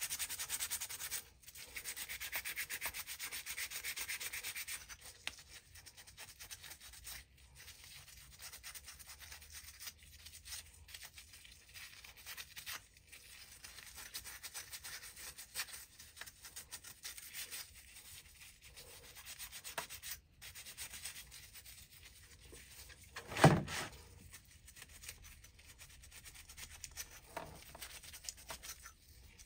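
Rapid hand scrubbing with an abrasive on the metal of an oil burner's electrode and nozzle assembly, scouring black soot off it. The scrubbing is heaviest in the first few seconds and lighter after that, with one sharp knock a little over 23 seconds in.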